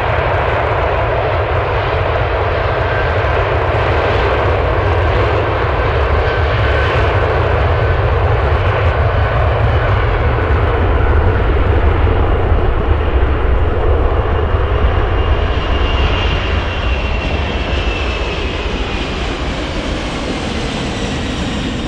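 British Airways Boeing 747-400's four Rolls-Royce RB211 jet engines at take-off thrust during the take-off roll: a steady, heavy rumble that swells to its loudest about halfway through and then eases as the jet passes and lifts off. A thin whine falls in pitch in the last few seconds.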